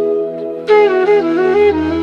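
Instrumental background music: a flute melody with bending, ornamented notes over a steady drone. A new phrase begins about a third of the way in, and a low bass note comes in near the middle.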